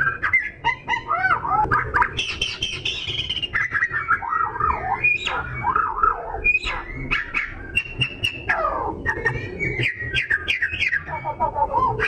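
Oriental magpie-robin singing in full, continuous song: a varied run of whistled phrases, rising and falling slurs and quick chattering notes.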